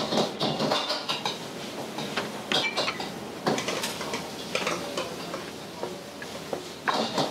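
Kitchen clatter: plates, bowls and cutlery clinking and knocking against trays and steel counters in repeated short strikes. Behind it a cook stirs in a wok at the stove.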